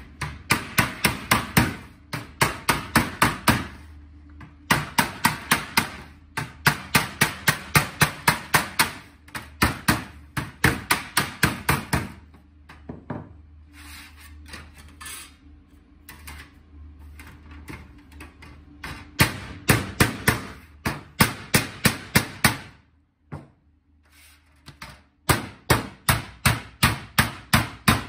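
Hammer blows on a folded sheet-metal seam, in fast runs of several even blows a second broken by pauses. A steel hammer strikes the seam over a hand-held steel dolly at first; near the end a white plastic mallet flattens the seam.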